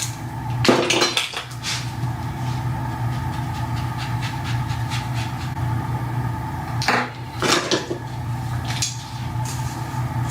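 Metal hot combs clinking and rattling as they are handled, in two short clusters, over a steady electrical hum.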